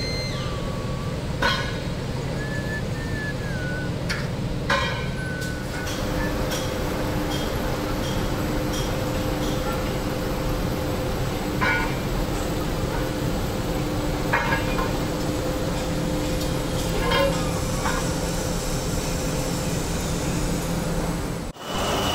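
Steady machinery drone of a steel re-rolling mill, broken every few seconds by a sharp clank of metal bars being handled and stacked.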